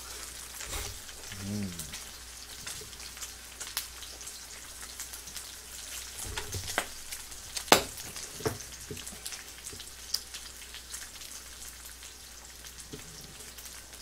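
Pork belly slices sizzling in a frying pan, a steady hiss with fat crackling and popping. A sharp click sounds a little past halfway.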